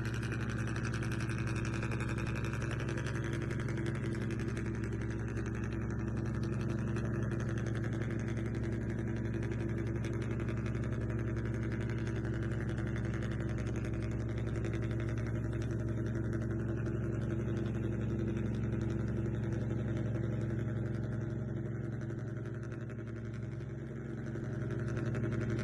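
Radio-controlled model's engine sound: a steady, low idling hum that holds one pitch, easing off briefly near the end and then swelling again.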